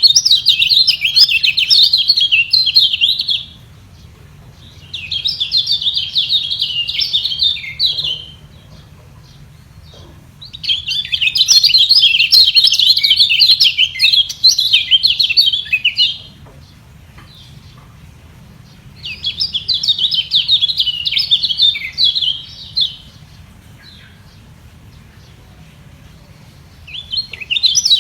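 Lemon-bellied white-eye (kecial kuning) singing in bouts of fast, high twittering song, each a few seconds long, with short pauses between them.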